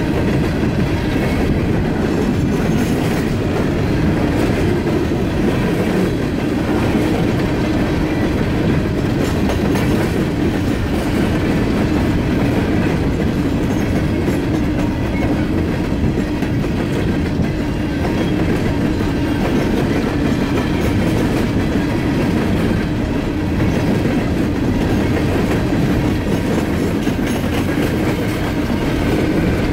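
Coal hopper cars of a freight train rolling past close by, their steel wheels running on the rails with a steady, unbroken noise.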